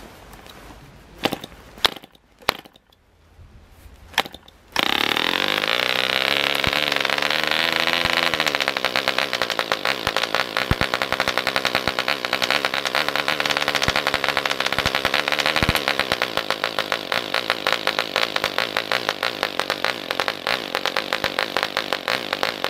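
A Jaskolka MK II 2.5 cc model aircraft diesel engine being hand-started: a few sharp clicks as the propeller is flicked, then it fires almost five seconds in and runs at high speed. Its pitch wavers as the compression adjuster on top of the head is worked, and about sixteen seconds in it settles into a slightly quieter, pulsing run.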